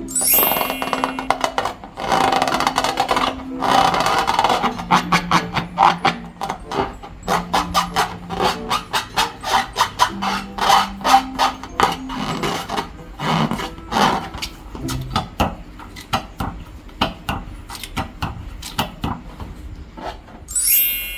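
Slime being squeezed and worked by hand, a dense run of rapid wet crackles and clicks, with a few short low tones in between.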